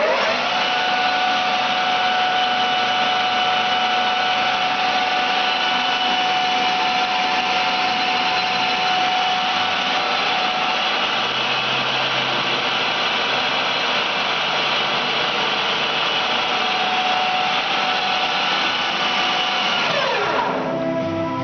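Challenger lathe running under power with a steady whine from its drive. The whine climbs as it runs up at the start, holds steady, then drops away as it winds down about twenty seconds in.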